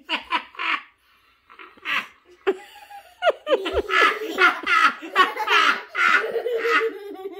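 Young children laughing and giggling: a few short bursts early on, then a long run of laughter from about three seconds in.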